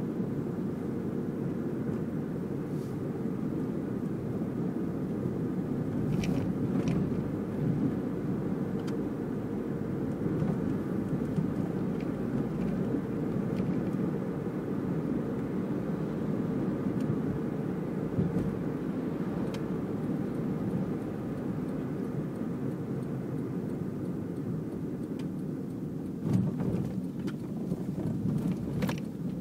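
Car engine and road noise heard from inside the cabin while driving, a steady low rumble, with a few short clicks near the end.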